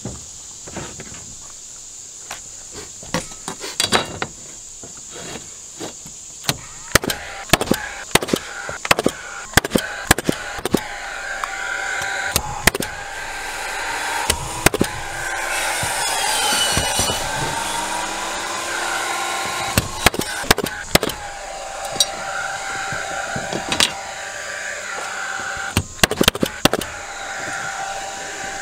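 Cordless framing nailer firing nails into plywood roof decking: a long run of sharp shots at uneven spacing, sometimes several a second. A humming motor rises and falls in pitch through the middle.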